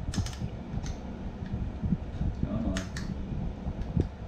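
A few short clicks and rustles as the padded strap of a foot-worn dumbbell holder is worked around a bare foot, over a steady low background hum.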